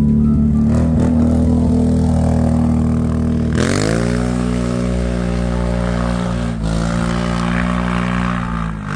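Motorbike engine running loud and steady, then revving up to a higher pitch about three and a half seconds in and holding it, with a brief dip, before dropping off near the end.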